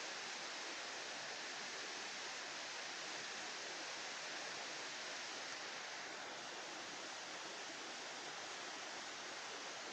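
Steady rushing noise with no distinct sounds in it, a little softer from about six seconds in.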